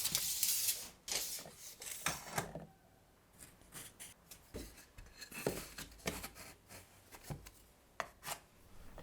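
Pine trim boards being handled: a scraping rub in the first second or so, then scattered light wooden knocks and clicks.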